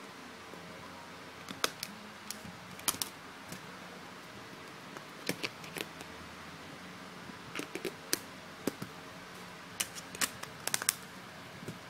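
Sharp plastic clicks and snaps of a Xiaomi Redmi Note's back cover being unclipped and clipped back on as its battery is pulled out and refitted. The clicks come in small clusters every second or two over a faint steady hiss.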